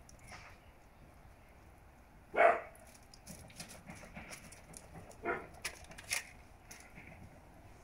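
Presa Canario puppies at play: one short, loud bark about two seconds in and a weaker one about five seconds in, with a few light clicks after it.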